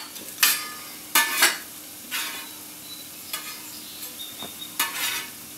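Chopped onion and garlic sizzling in olive oil in a small pot, broken by about five short scraping strokes as the garlic goes in and is stirred.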